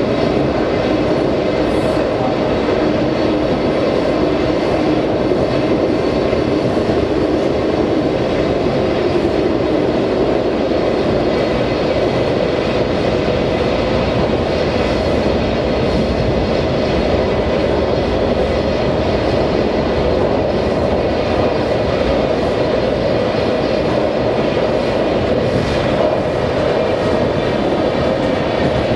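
Washington Metro Red Line train running, a steady rumble heard from inside the front car, with faint steady high tones over it.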